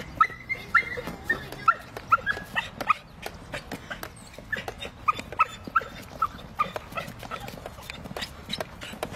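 A dog whining and yipping excitedly in a run of short, high-pitched squeaks, about two a second, as it eagerly anticipates going for a walk.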